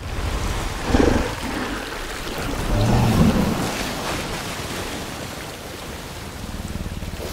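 Film sound design of a giant gorilla growling while it eats: a short growl about a second in and a longer, deeper growl around three seconds in, over a steady rumble of water and wind.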